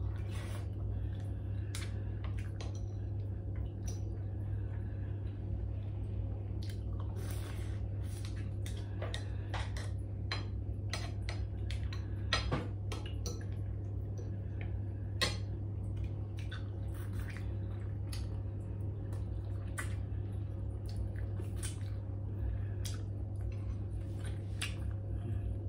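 Spoon and fork clicking and scraping against ceramic bowls and a plate during a meal, with chewing between the clicks. A steady low hum runs underneath.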